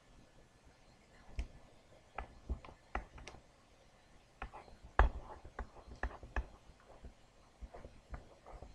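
Pen writing and tapping on a surface: a dozen or so short, irregular taps and clicks, the loudest about five seconds in, over quiet room tone.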